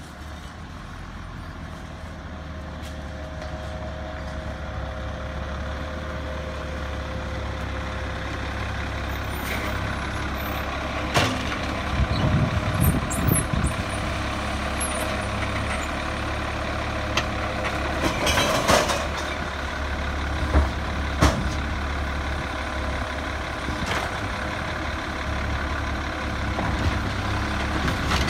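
Engine of an Autocar WX garbage truck with a Labrie Minimax automated side-loader running, growing louder as the truck pulls up. About eleven seconds in come knocks and clatter, then a loud hiss and two sharp bangs, as it stops and its arm lifts, dumps and sets down a roll cart.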